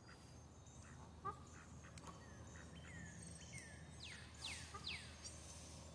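Faint outdoor birdsong: several birds chirping, with a brief lower call about a second in and three quick falling whistles about four seconds in.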